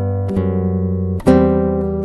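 Background music on acoustic guitar: strummed chords that ring out and fade, a new chord about once a second.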